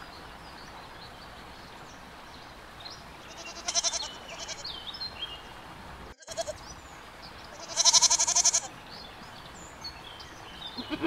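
Goats bleating: a short bleat about four seconds in and a longer, wavering bleat about eight seconds in, with another starting at the very end.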